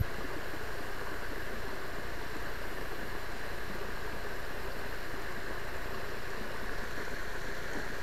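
Steady rush of shallow water running over a concrete spillway slab, an even hiss that holds at one level throughout.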